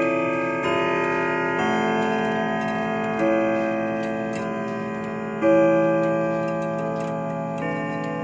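Grandfather clock ticking steadily under slow melodic notes that ring on and fade, a new note struck every second or so.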